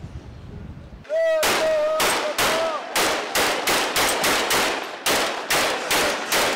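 Wind rushing on the microphone of a moving car, then, about a second in, a long run of celebratory gunfire from Kalashnikov-style assault rifles, about three or four sharp shots a second, each with a short echo. A raised voice comes between the shots.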